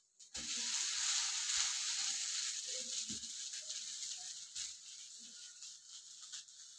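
Dosa sizzling on a hot iron tawa just after being flipped. The hiss is strongest at first and fades off gradually, with a few faint knocks.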